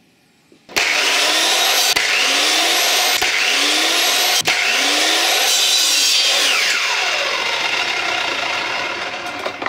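Electric mitre saw running and cutting through plywood. The motor's whine rises several times as the saw spins up, then falls away as the blade winds down, and the sound tails off near the end.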